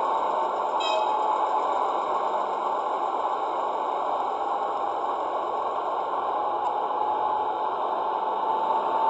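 Steady diesel engine running sound from a sound-equipped H0 model of the DR class 120 'Taigatrommel' diesel locomotive, standing at idle.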